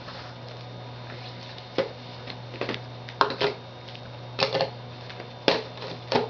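Scattered brief rustles and clicks of packaging and box contents being handled, about seven in all, over a steady low hum.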